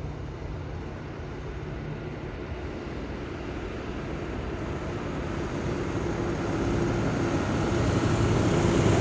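Diesel engine of a large farm machine running steadily, getting gradually louder as it approaches.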